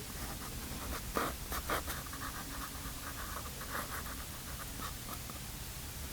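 Pastel strokes scratching across paper in a run of short rubs, two louder strokes about a second in, over a steady low hum.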